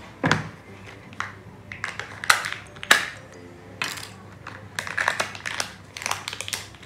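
Scattered clicks, taps and crinkling of small plastic pieces being handled: a Kinder Joy egg's plastic toy capsule being opened and its toy parts set down on a glass tabletop.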